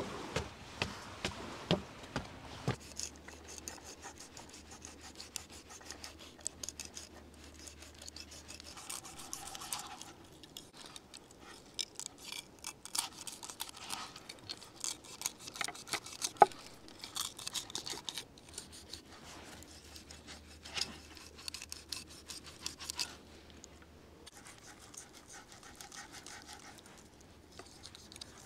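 Footsteps on wooden stairs, then a knife blade scraping along a sturgeon's skin on a wooden cutting board in many short rasping strokes, with one sharp knock about halfway through.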